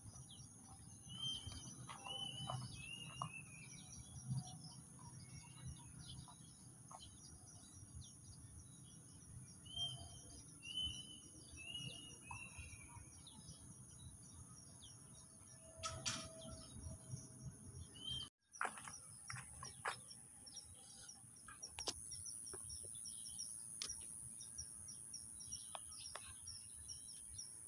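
Faint outdoor ambience: a bird calling in runs of three or four short, downward-slurred chirps, twice, over a steady high insect drone and scattered light clicks.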